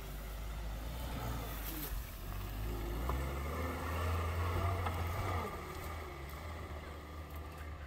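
Suzuki Jimny's engine pulling the small 4x4 up a steep grassy slope, its note rising and swelling in the middle of the climb and easing off near the end.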